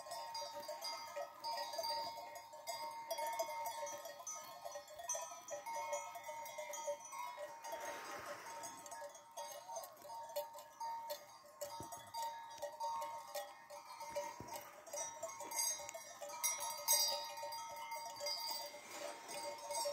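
Bells on a grazing flock of sheep clanking without pause, several bells at different pitches ringing over one another.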